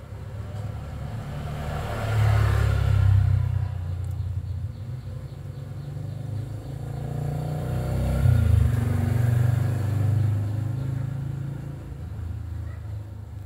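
Engine rumble of passing motor vehicles, swelling and fading twice: once about two seconds in and again around eight seconds.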